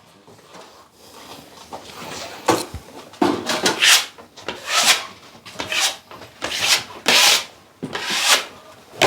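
Repeated rasping, scraping strokes of a hand tool worked over drywall, about one stroke a second, growing louder after the first couple of seconds.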